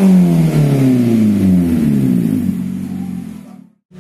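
A car engine through a tuned aftermarket exhaust, its note falling steadily as the revs drop back after a blip. It fades out about three and a half seconds in and cuts off just before the end.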